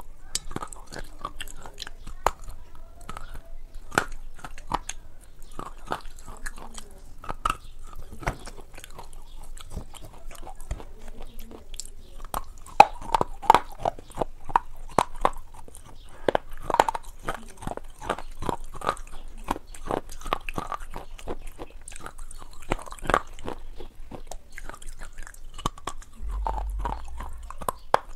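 A person biting and chewing a crunchy, crumbly white food: a run of sharp crunches, busier and louder from about halfway through.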